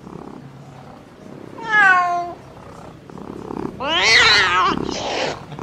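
A domestic cat meowing twice: a short call with a falling pitch about two seconds in, then a louder, longer, rough yowl about four seconds in. The cat sounds displeased, 'not really in a good mood'.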